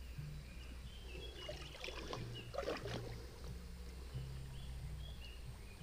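Stream water sloshing and splashing around a hand groping under a root-tangled bank, picked up by a partly submerged camera. A steady low rumble runs under it, with a cluster of sharper splashes about halfway through.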